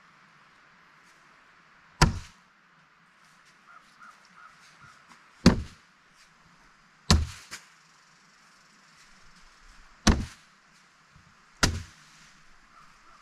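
Cornhole bean bags landing on wooden cornhole boards: five heavy thuds a few seconds apart, one followed straight away by a lighter knock.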